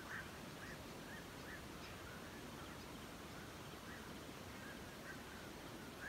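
A flock of birds calling: short, repeated calls, about two a second, over a steady low hiss.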